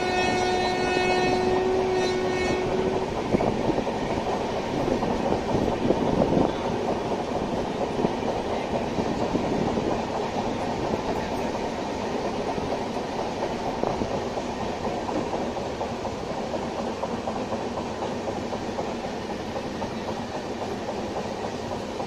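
Running noise of a moving train heard from a passenger coach: a steady rumble of wheels on rail with a few sharp clicks. A train horn sounds at the start and stops about three seconds in.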